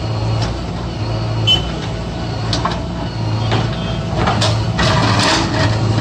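JCB 3DX backhoe loader's diesel engine running steadily, with a louder stretch of noise about four seconds in as the backhoe works in the trench.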